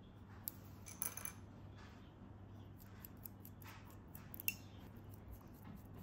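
Light clicks and taps of metal-tipped bamboo knitting needles as they are handled and worked, a few sharp ones scattered through, the sharpest about four and a half seconds in, over a faint steady low hum.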